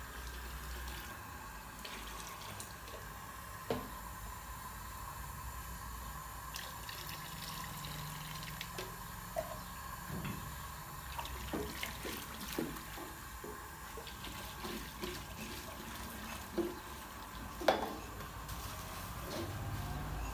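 Liquid dye splashing and sloshing as it is poured through a strainer and swirled in a large steel pot, with scattered knocks and clinks, the loudest near the end, over a steady hum.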